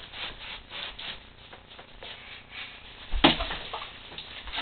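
Cardboard boxes rubbing and scraping with shuffling movement, irregular and noisy, with one sharp thump a little over three seconds in.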